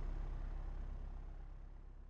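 Propeller aeroplane in flight: a steady low engine and propeller drone, fading out.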